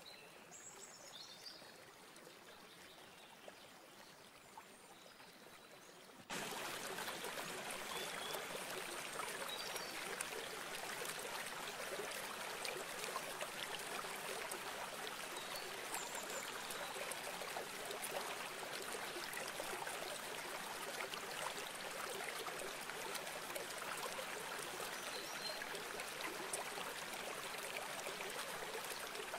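Near quiet with a few faint high chirps, then about six seconds in a sudden switch to the steady rush of a flowing river, with occasional faint high chirps above the water.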